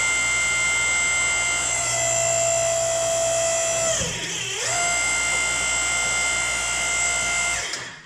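Hydraulic pump of a tractor splitting stand running with a steady whine under load as the split tractor halves are drawn back together. Its pitch sags briefly about four seconds in, then recovers, and it cuts off just before the end.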